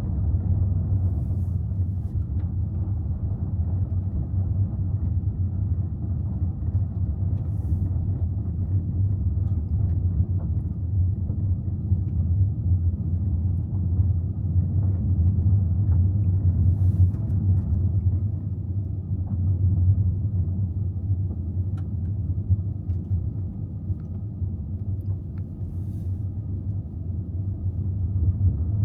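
Steady low rumble that holds at an even level throughout, with a few faint ticks on top.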